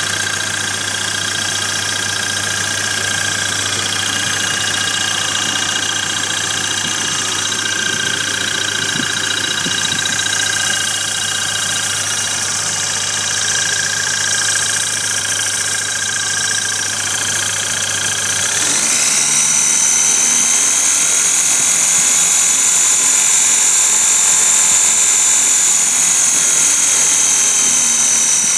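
Kia Sportage's Mazda 2.0 SOHC engine running steadily, with a belt-driven York 210 air compressor fitted to it. About two-thirds of the way through, the sound shifts: the low hum drops away, a steady high whine comes in, and it grows slightly louder.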